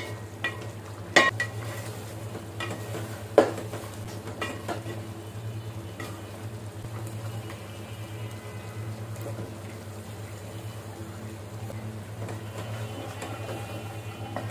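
Wooden spatula stirring chicken curry in an aluminium pot, with sharp knocks against the pot, the two loudest about one and three and a half seconds in, and lighter scrapes and clicks after. Faint sizzling from the curry over a steady low hum.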